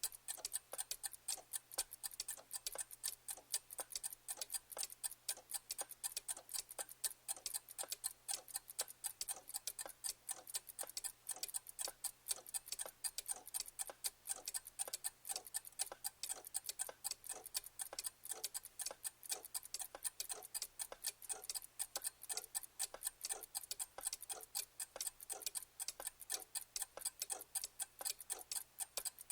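Clock ticking steadily: a fast, even run of sharp ticks.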